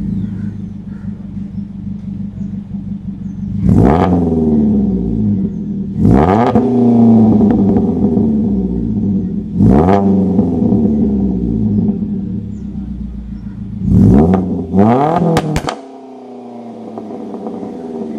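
Stage 2 tuned Suzuki Jimny's naturally aspirated 1.5-litre K15B four-cylinder, revved at standstill through a BAR Exhausts full system with 1.5-inch headers and twin centre-exit tips. There are five sharp throttle blips, the last two in quick succession near the end. Each rises fast and falls back to a steady idle, which is quieter after the final blip.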